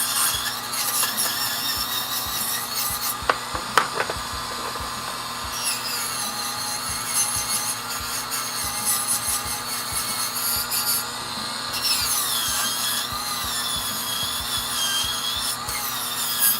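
Small high-speed rotary tool sanding a carved wooden chess piece: a steady high whine that dips and recovers as the abrasive bears on the wood, with a rubbing hiss and a few sharp ticks about four seconds in.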